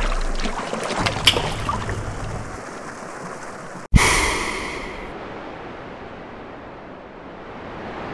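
Water splashing and spattering, with a few sharp droplet ticks. About four seconds in, the sound cuts out for an instant and gives way to a sudden rush of air, like a gust or a blow, that fades into a soft steady hiss.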